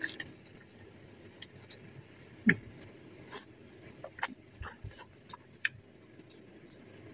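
Soft, scattered mouth sounds of eating: wet smacks and clicks as egg noodles are slurped and chewed and a roast duck leg is bitten into.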